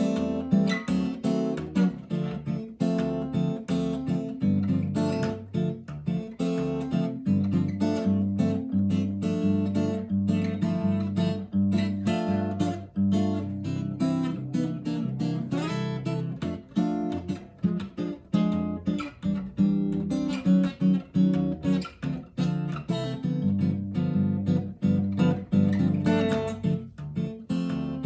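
Solo Martin acoustic guitar playing a bossa nova: plucked chords in a syncopated rhythm over a moving bass line.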